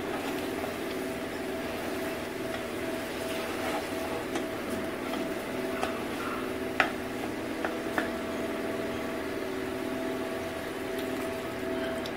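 Steady mechanical hum, with a few sharp light clicks of a utensil against an aluminium pressure cooker as spice-coated vegetables are stirred.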